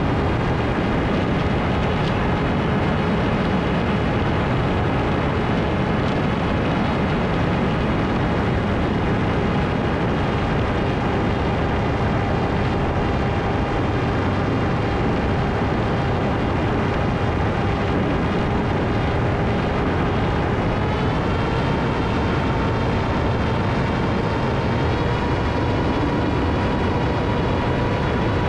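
Electric motor and propeller of an FPV flying wing running in flight under heavy wind rush, a steady whine whose pitch rises a little about two-thirds of the way through as the throttle comes up.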